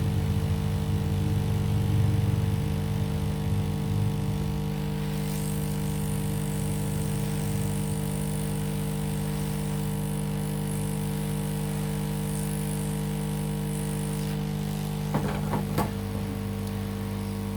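Steady electrical hum made of several constant tones over a low rumble, with a faint hiss through the middle and a few brief clicks near the end.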